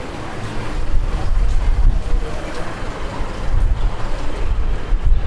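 Outdoor street ambience dominated by a heavy, steady low rumble, with a noisy hiss above it and no clear single event.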